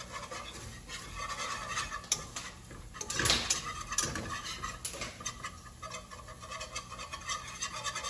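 A whisk stirring flour into melted butter and garlic in a nonstick skillet, working it into a thick roux paste. It makes irregular scraping and tapping against the pan, with one louder knock about three seconds in.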